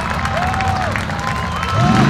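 Crowd of spectators cheering and calling out, with rising and falling shouts, over an off-road competition buggy's engine, which revs up near the end.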